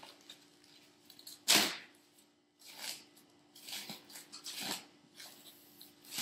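Plastic bag rustling and crinkling in several short bursts as it is pulled open and peeled off a DJ controller, the loudest burst about a second and a half in.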